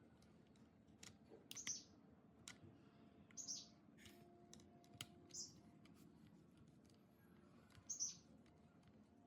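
Faint, high chirps from a small bird, each a short downward-sliding note, repeated about every two seconds over a few soft scattered clicks.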